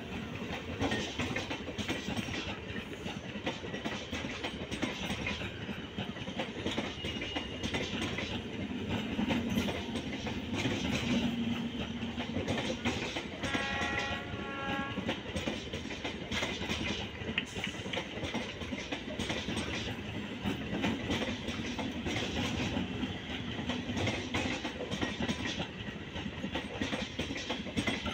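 Indian Railways passenger coaches running past, wheels clattering steadily over the rail joints with a continuous rushing rumble. A short, pulsed hooting tone sounds about halfway through.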